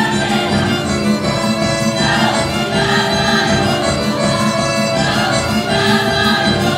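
Live folk orchestra playing Serbian folk dance music, fiddle among the instruments.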